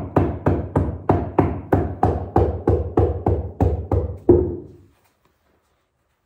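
A rapid run of knocks, about three a second, with a short ring after each, from a brick being tapped down into its mortar bed to level it; the tapping stops about four and a half seconds in.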